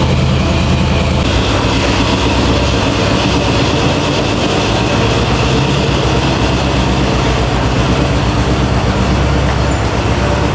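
High-pressure water spray washing down a truck, a loud steady hiss over an even motor hum. It does not let up.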